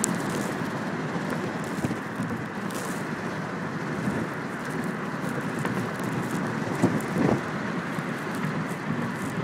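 Steady road and wind noise inside a moving car, an even rushing hiss. A couple of short thumps come about seven seconds in.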